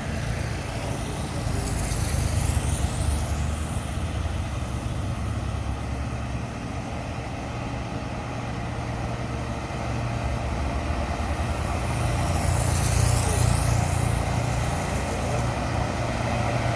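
Steady low rumble of heavy truck engines on the hill, with two vehicles passing close by, one about two seconds in and another about thirteen seconds in.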